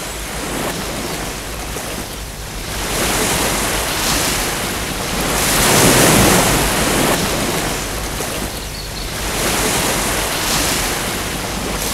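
A surf-like rushing noise, swelling and ebbing in slow waves every few seconds, loudest about six seconds in.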